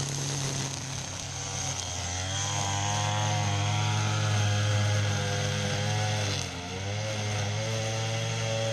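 String trimmer engine running under throttle as it cuts grass, its pitch rising and wavering, dipping briefly about six and a half seconds in, then climbing again.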